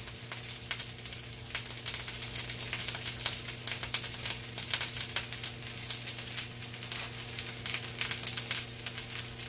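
Onions and garlic sizzling as they dry-roast in a foil-lined pan over a low stove flame, a steady run of small crackles and pops. A steady low hum runs underneath.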